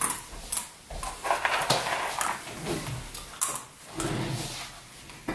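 A person sitting down in a mesh office chair and handling a plastic food tub: irregular knocks, rattles and creaks.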